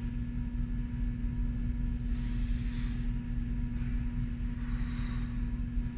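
A steady low hum, with two soft breaths from a woman working through stability-ball reps, about two seconds in and again near the end.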